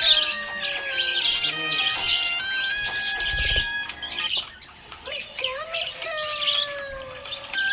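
Budgerigars chirping and chattering in repeated bursts of high, rapid notes, with a dip about halfway through. Long steady held tones and a few slow gliding notes run underneath, like background music.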